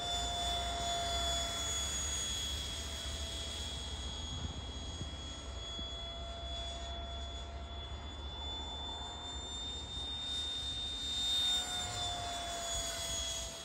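A 64mm electric ducted fan on a foam-board RC jet whining steadily in flight, its pitch wavering slightly as the model manoeuvres, over a low rumble. The whine swells briefly near the end as it comes closer.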